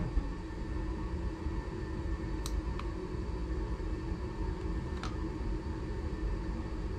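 Home furnace running in the background with a steady low rumble and hum. A few light clicks, about two and a half seconds in and again near five seconds, come from presses on a handheld remote's button.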